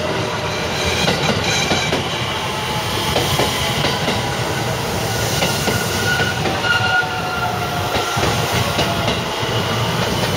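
JR West 223-series electric train running past as it arrives at a station, its wheels clacking over the rail joints. Short high-pitched squeals come and go around the middle.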